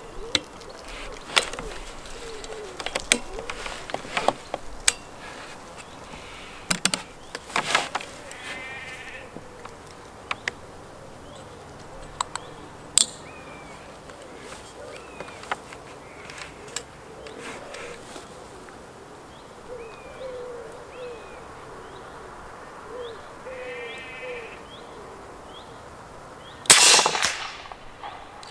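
A Gunpower Texan .50-calibre precharged air rifle fires once about 27 seconds in: a single loud, sharp report with a short ringing tail. Before the shot there are scattered small clicks and birds chirping.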